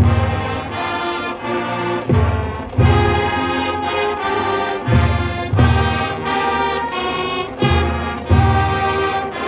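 A marching band playing live: sustained brass chords, with strong low notes returning every couple of seconds.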